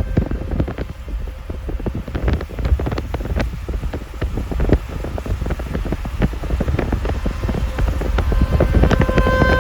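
Storm wind buffeting the microphone in a low rumble, with irregular sharp taps throughout. A steady tone with overtones comes in near the end.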